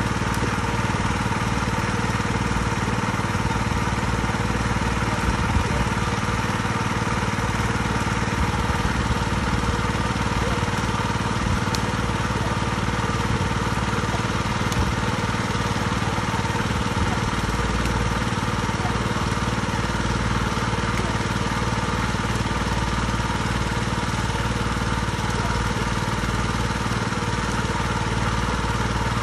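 Small engine-driven water pump running steadily at an even speed, pumping a pond dry.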